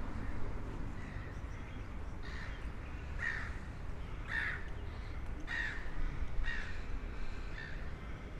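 A crow cawing over and over, about one call a second, six or seven calls that grow louder toward the middle and then fade, over a steady low background rumble.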